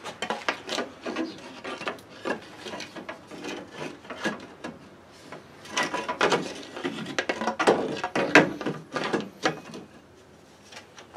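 Wooden block knocking and scraping against the engine and variator as it is worked into place, a run of irregular knocks and rubs that stops near the end.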